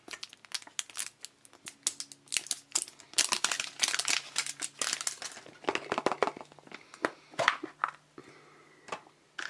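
Plastic shrink-wrap being peeled and torn off a plastic surprise-egg capsule: quick, irregular crinkles and crackles, then the capsule being pulled open.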